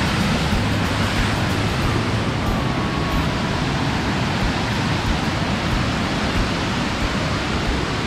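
Steady rush of a waterfall: a stream running high over a series of granite ledges and cascades, white water pouring continuously.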